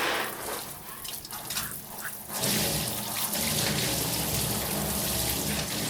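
Shower running: a steady hiss of water spray splashing on surfaces. The spray sounds thinner and quieter for a couple of seconds, then comes back fuller about two and a half seconds in.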